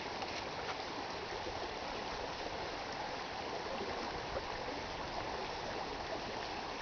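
Shallow muddy floodwater running down a dry gravel wash at the start of a flash flood: a steady rush of water.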